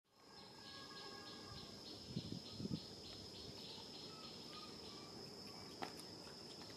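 Insects chirping: a steady high trill with a pulsing chirp about three times a second. A few low thumps come a little after two seconds, and a single sharp click comes near six seconds.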